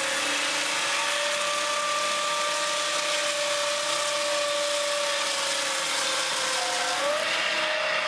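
Peterson ASM swingblade sawmill with a 20 hp three-phase electric motor, sawing through a log: a steady whine over the hiss of the cut. The whine's pitch sags slowly and picks back up about seven seconds in.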